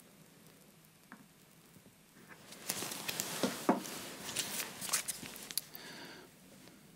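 Plastic piping bag full of buttercream rustling and crinkling as it is handled and squeezed, with a few sharp crackles; it starts about two seconds in and fades out near the end.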